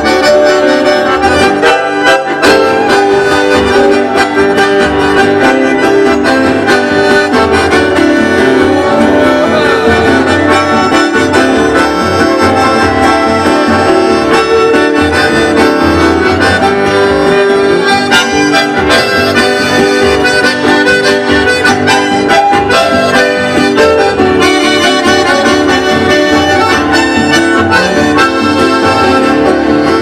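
Live accordion playing a melody, accompanied by acoustic guitars, violin and cello, in continuous music with no pauses.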